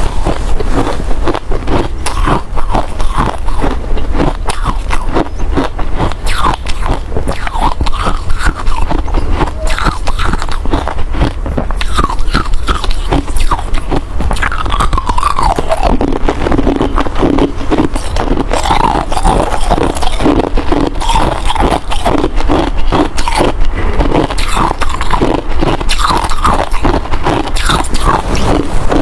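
Ice being bitten and chewed, a loud, dense run of sharp crunches and cracks with no pauses.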